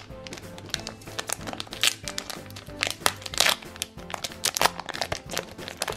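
Foil wrapper of a Shopkins collector-card pack crinkling and crackling as it is pulled open by hand, with background music.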